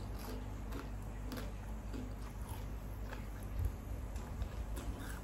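A person chewing food close to the microphone: scattered soft clicks and mouth noises over a steady low hum.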